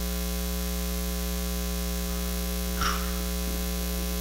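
Steady electrical mains hum, a buzz with many overtones, carried through the church sound system while no one speaks. A brief faint noise comes a little under three seconds in.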